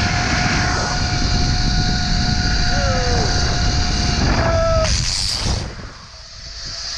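Zip line trolley running down the steel cable: a steady whine over heavy wind rush on the body-worn camera's mic. It stops about five and a half seconds in as the rider slows at the bottom, and the wind noise falls away.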